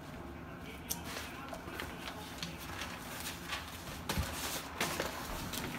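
Spiral notebooks handled on a wooden table: pages flipping and rustling, with scattered light taps and clicks, and a denser rustle about four seconds in as a notebook is grabbed and pulled across the table.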